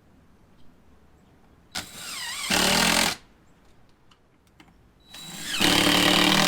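A power drill driving two screws to fasten a window frame, one after the other: each run starts with a short whining spin-up and then runs loud for about a second as the screw goes in.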